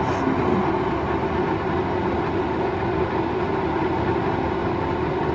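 Keurig K-Elite single-serve coffee maker running partway through a brew cycle, giving a steady mechanical hum.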